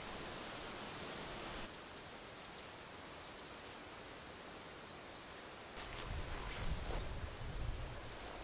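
Outdoor summer ambience of insects, bush crickets or grasshoppers, buzzing in high-pitched stretches that come and go, over a faint rustling hiss. From about six seconds in, a low, fluttering rumble joins, like wind on the microphone.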